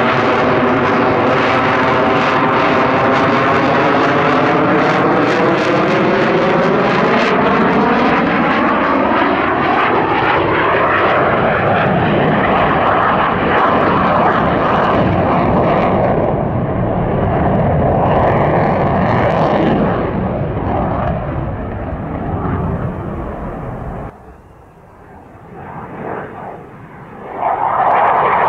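F-16AM Fighting Falcon's Pratt & Whitney F100 turbofan jet noise during a display pass. It has a sweeping, falling whoosh through roughly the first ten seconds. The roar fades sharply about 24 seconds in and swells back loud near the end.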